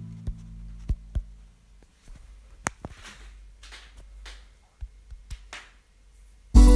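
Music dying away, then a few seconds of quiet with scattered faint clicks and soft swishes. The next piece of music starts abruptly near the end.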